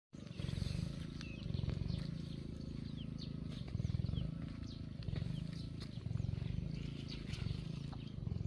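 A low, pulsing animal sound that comes in phrases of about a second each, with faint short chirps above it.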